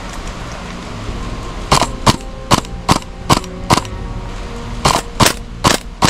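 Tokyo Marui MTR-16 gas blowback airsoft rifle firing single shots in two strings: six sharp cracks at about two and a half a second, a pause of about a second, then four more.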